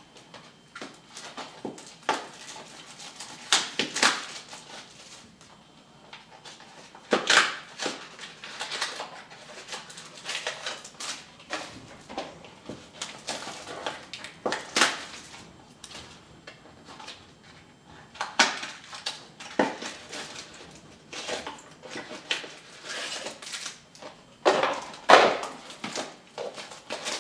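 Wrappers of 2010 Topps Prime football card packs crinkling and tearing as the packs are opened by hand: irregular rustles and crackles, with a few louder tears.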